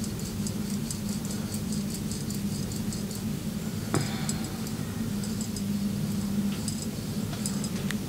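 Hands rubbing and working during a massage, a rapid run of faint crackling ticks with one sharper click about four seconds in, over a steady low hum.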